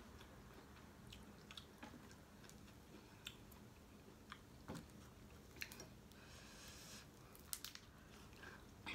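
Faint chewing and mouth sounds of a person eating by hand, with scattered soft clicks and a brief hiss about two-thirds of the way through.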